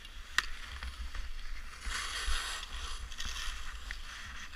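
Skis sliding and scraping over packed snow, a steady hiss that swells louder about two seconds in, with wind rumbling on the microphone and a short click about half a second in.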